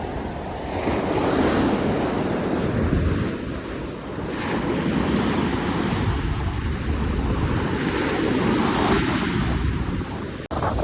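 Ocean waves surging, with wind buffeting the microphone; the wash swells about a second in, eases about four seconds in, then builds again, with a brief dropout near the end.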